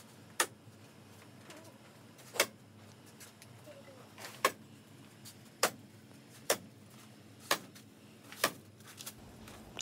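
Staple gun firing sharp single clicks, seven of them roughly a second apart, as plastic vapour-barrier sheeting is stapled to wooden wall studs over insulation.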